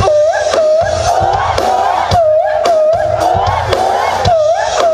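Loud recorded music with a singer holding long, wavering notes over a steady drum beat and deep bass.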